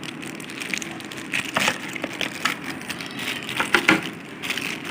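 Packaging being handled during an unboxing: irregular crinkling and crackling with scattered clicks and knocks, the loudest a cluster about four seconds in.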